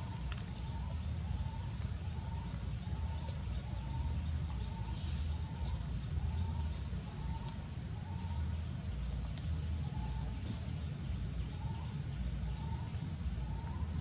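A steady, high-pitched insect chorus with a slight pulsing, and over it a single repeated short falling call, about one every 0.7 s, that stops for a couple of seconds after the middle and then resumes. A low rumble runs underneath.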